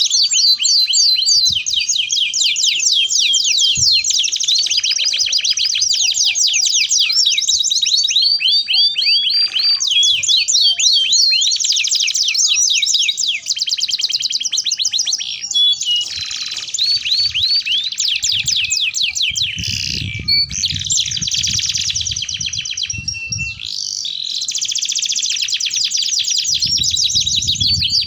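Domestic canaries singing continuous, rapid trilled song, one fast run of repeated notes after another with hardly a break. A low rumble sits beneath the song about two-thirds of the way in and again near the end.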